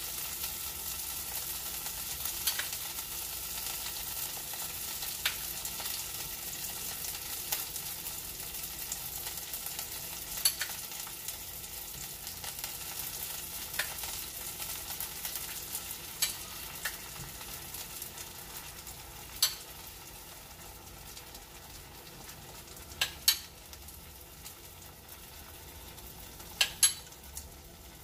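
Beaten egg and tomato slices frying in butter in a stainless steel skillet, a steady sizzle that slowly dies down. Sharp clicks every few seconds from a fork against the bowl as the egg is spooned in.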